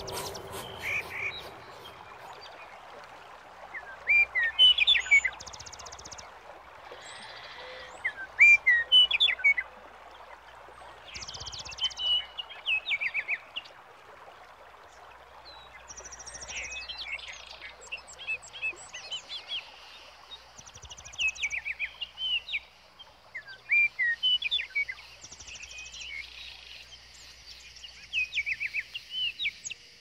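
Small songbirds singing: phrases of quick chirps and fast high trills every few seconds, over a faint steady hiss of outdoor ambience.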